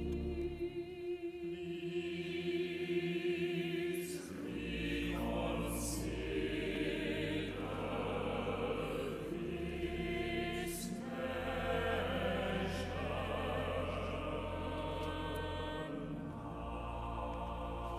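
Church choir singing a song with piano accompaniment: voices with vibrato hold long notes over sustained low piano chords.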